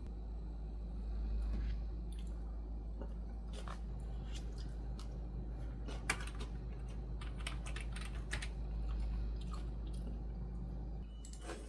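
Scattered light clicks and taps, irregular, with one sharper click about halfway, over a steady low hum.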